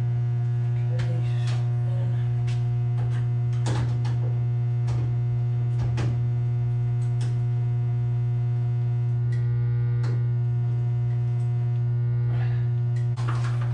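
Loud, steady low hum of two large 150 kVA electrical transformers running. A scatter of light clicks and knocks sounds over it as wires are handled in the breaker panel.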